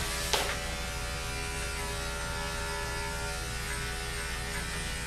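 Andis electric dog-grooming clipper running with a steady buzz as it clips through a dog's chest fur, with a short click just after the start.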